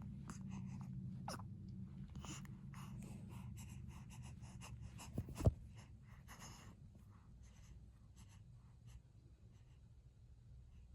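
Faint rustling and light scratching, with many short soft clicks, over a low steady hum. One sharp knock about five and a half seconds in is the loudest sound.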